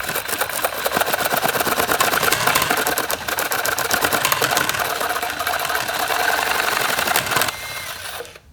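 Motorised LEGO chainsaw prototype running as it cuts into styrofoam: the plastic chain and gears make a fast, even clattering rattle that stops abruptly about a second before the end.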